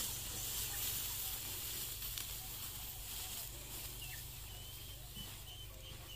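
Footsteps and a sack brushing through dry rice stubble, a steady rustling hiss that fades as the walker moves away. Faint bird chirps come in from about halfway.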